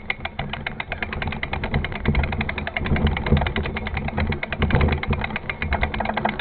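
Mountain bike riding along a dirt trail: a continuous low rumble from the tyres and wind, with a rapid, even ticking of about ten a second running through it.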